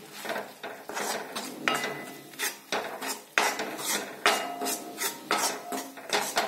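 Steel spoon scraping and clinking against a steel kadhai, stirring wheat flour as it roasts in ghee for halwa: quick repeated strokes, about three a second, some with a brief metallic ring.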